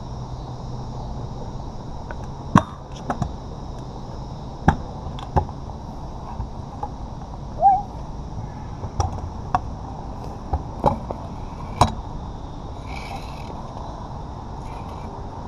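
Stunt scooter riding flat-ground on asphalt: wheels rolling, with about ten sharp clacks as the deck and wheels hit the pavement on landings and kicks, bunched in the first twelve seconds.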